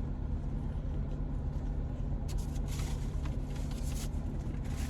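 Steady low hum of a parked car idling with its air conditioning running. A few brief rustles come over it about halfway through and again near the end.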